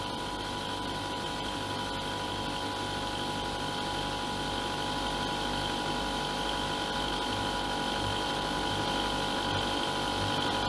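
Stirling machine driven by its electric motor and running as a refrigerator: a steady mechanical hum with a constant whine, slowly growing a little louder.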